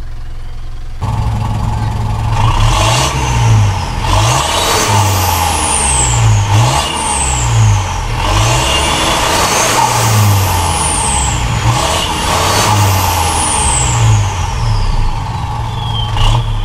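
Mitsubishi Montero Sport's 2.5-litre turbocharged direct-injection diesel heard at the exhaust tip, revved repeatedly in short blips from about a second in, its pitch climbing and falling each time, with a high whistle sliding down in pitch after several of the blips.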